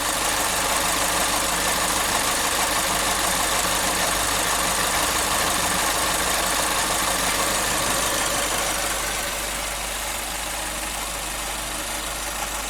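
Chevrolet Spin engine idling with a light tapping from the evaporative canister purge solenoid valve. The tapping is the sign of a faulty purge valve, which the mechanic identifies as the source of the customer's complaint of something loose rattling in the engine.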